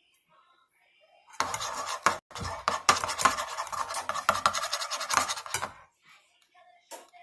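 Rapid scratching made of many quick strokes, starting about a second and a half in and lasting about four seconds, with a single click near the end.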